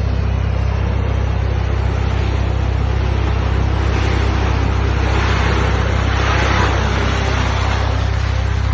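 Off-road vehicle's engine running steadily under load, a constant low drone with a rushing noise over it that swells briefly near the end.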